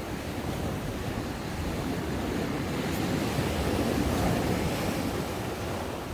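Ocean waves breaking and washing up the beach, one swelling to its loudest a few seconds in and then easing back. Some wind on the microphone.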